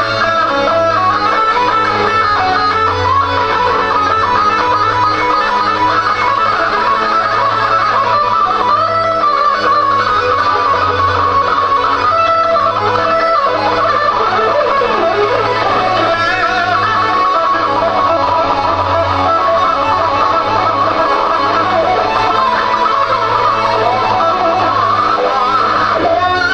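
Acoustic guitar played live on stage and amplified: a dense stream of picked notes over low notes that swell and fade every second or two.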